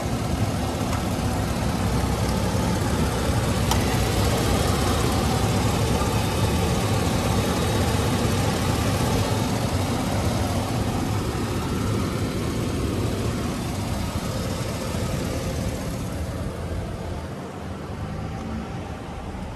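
2003 Chevrolet Silverado's engine idling steadily, heard close up in the open engine bay, getting quieter near the end as the microphone moves away along the truck.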